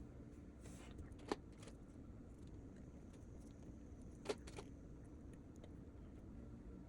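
Quiet room tone with a few faint, sharp taps: one about a second in and two close together a little past the middle.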